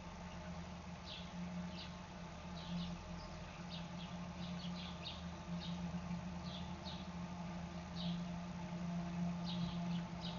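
Underwater sound in a koi pond: a steady low hum with short, high chirps scattered irregularly through it.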